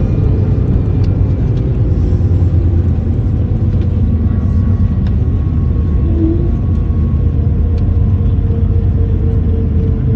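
Steady low rumble of an Airbus A220 rolling after landing, with faint steady whining tones from its engines over it.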